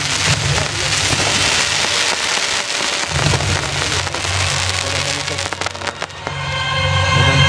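Fireworks crackling densely, a rain-like hiss of many small pops over a low rumble of booms. About six seconds in, music with held tones comes in over the crackle.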